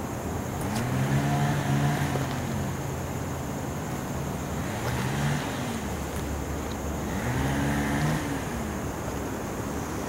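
An engine revving up and then dropping back, three times, over steady outdoor background noise.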